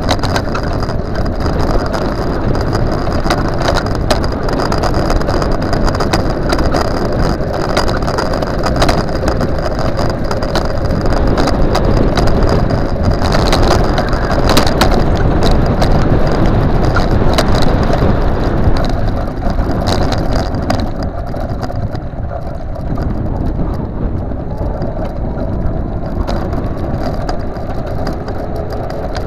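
Custom-built dual 48 V Xiaomi M365 electric scooter being ridden on a paved path: a steady rumble of wheels and wind with constant rattling and clicking, and a faint motor whine that drifts slowly in pitch.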